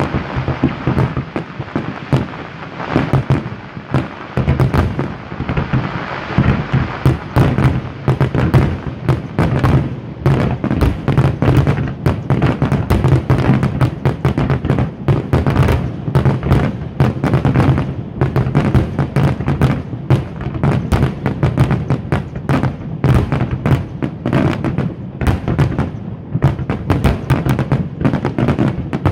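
Fireworks display: aerial shells bursting in quick, unbroken succession, a dense run of bangs and crackle.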